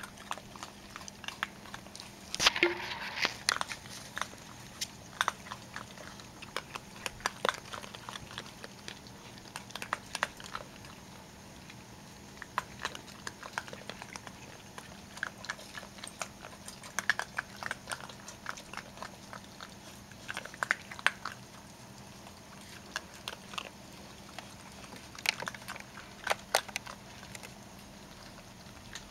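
Young raccoons eating, with irregular crunching and chewing clicks as they bite into dry food; the loudest flurry of crunches comes about two and a half seconds in.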